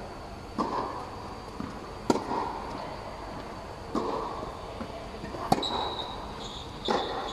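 Tennis rally: rackets striking the ball and the ball bouncing on the court, a sharp hit every second or two. Each hit echoes under the fabric air-supported dome.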